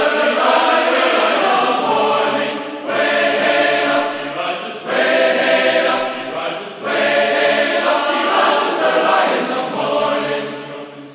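Choir singing a song in phrases with short breaks between them, fading out near the end.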